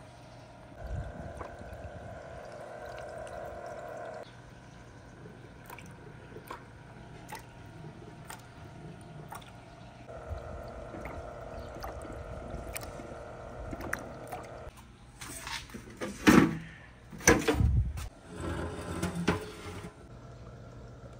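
Marbles clicking and rolling through a marble run that has water running in it. A steady machine hum comes and goes twice, and a burst of louder knocking and clattering comes near the end.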